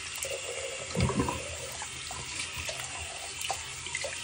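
Bathroom sink faucet running a steady stream of hot water into the basin, splashing over a hand held in the stream. A brief louder bump about a second in.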